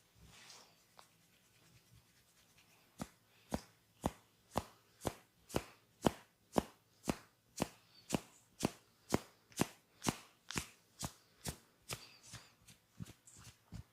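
Percussive massage strokes: a barber's hands striking the client in a steady rhythm of about two sharp slaps a second, starting about three seconds in after soft rubbing. The strokes turn quicker and lighter near the end.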